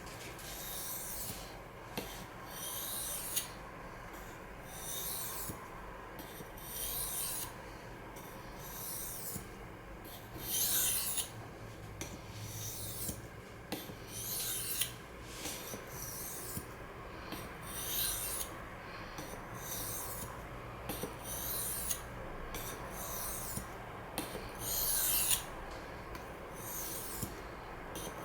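Knife blade of CPM S30V steel drawn repeatedly across a Sigma Power Select II water stone: a long series of scraping sharpening strokes, roughly one a second, some longer and louder than others.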